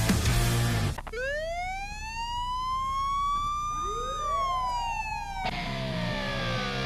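Ambulance siren sound effect: a single slow wail that rises for about three seconds and then falls. It starts just as the heavy guitar music cuts off about a second in, with quieter music coming back underneath near the end.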